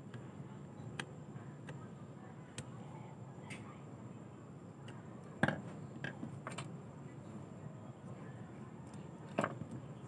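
Small plastic humidifier parts ticking and clicking as they are handled and poked with a thin metal tool, with two sharper clicks about halfway through and near the end, over a faint steady background hum.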